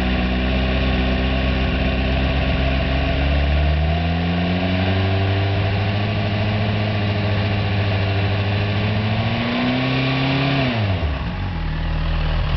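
Suzuki GSX-R1000 K7 inline-four idling, then held at a higher rpm from about four seconds in, creeping up slightly, before dropping back to idle near the end. The owner reports a misfire at idle and between 1,000 and 3,000 rpm.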